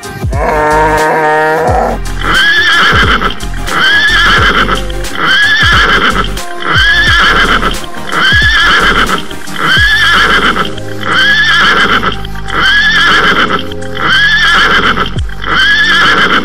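A short cow moo, then a horse neigh sound effect repeated about once a second, evenly, over background music.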